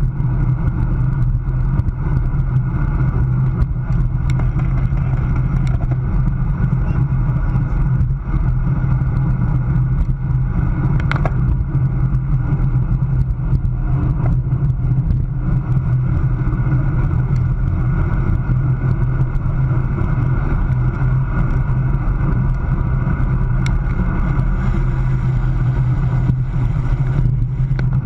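Wind rushing over a bicycle-mounted camera's microphone at about 20 to 25 mph, with road and tyre noise from the racing bike; a steady, loud low rumble.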